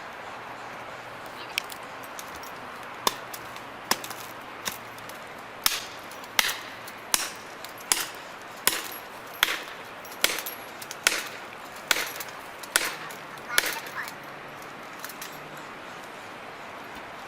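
Sharp strikes, about fifteen in all, at a steady pace of a little under one a second. They are loudest and most regular in the middle and stop a few seconds before the end, over a steady low hiss.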